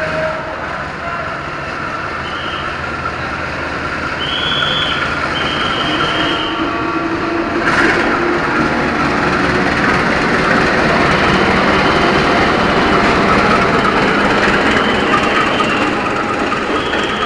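A diesel-electric locomotive running light along the platform track. Its engine and wheel noise grow louder as it approaches and passes, with brief high squeals from the wheels at intervals and a single sharp clank about eight seconds in.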